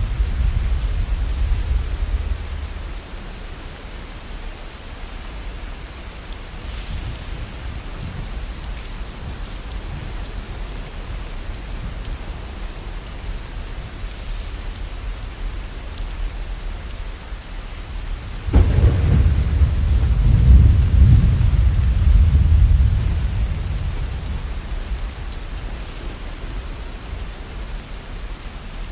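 Steady heavy rain with thunder. A low rumble dies away in the first few seconds, then a sudden thunderclap a little past halfway rolls on for about five seconds before fading.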